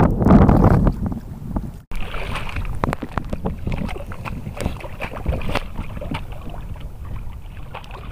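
Wind buffeting the microphone for about the first second, then, after a sudden break about two seconds in, small waves lapping and splashing with many little clicks around a small outrigger canoe being paddled. The water sounds slowly fade.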